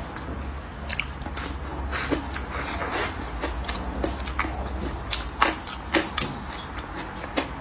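Close-miked chewing of a mouthful of braised pork belly and stir-fried vegetables: soft crunches and wet mouth clicks, with a few sharper clicks in the second half standing out as the loudest. A steady low hum runs underneath.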